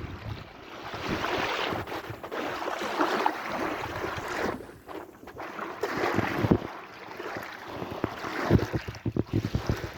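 Sea waves washing in and drawing back in surges every couple of seconds. Wind buffets the microphone in short low gusts near the end.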